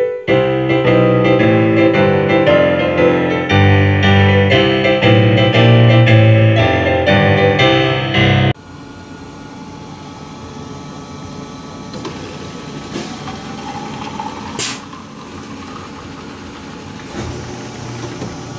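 Keyboard music with a steady beat cuts off abruptly about eight and a half seconds in. It is followed by a bottle-filling water station running water into a mug: a steady rushing sound, with a short rising tone and a click in the middle.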